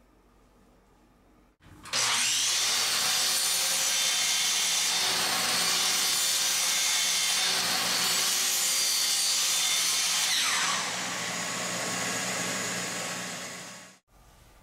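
Sliding miter saw starting up about two seconds in and cutting through a thin wooden strip at full speed. Near the end the motor slows with a falling whine before the sound cuts off.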